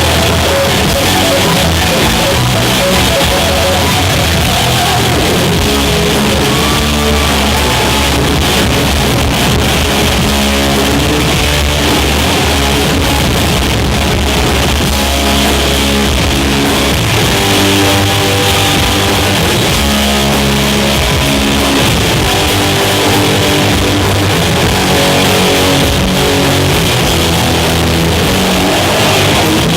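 Live rock band playing loud, with electric guitar riffs over bass and drums.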